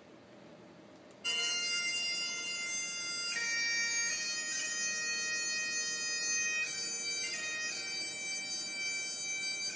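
Bagpipe music starting abruptly about a second in: a steady drone under a melody of held notes that change every second or so.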